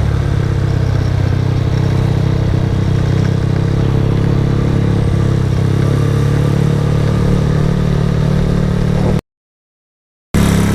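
Motorcycle engine running steadily while being ridden, with road noise. It cuts to complete silence for about a second near the end.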